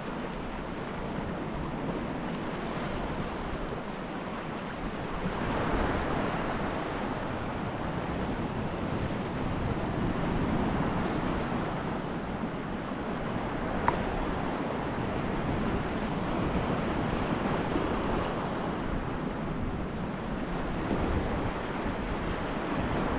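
Choppy sea water lapping and washing, rising and falling in slow surges, with wind buffeting the microphone. A single sharp click about fourteen seconds in.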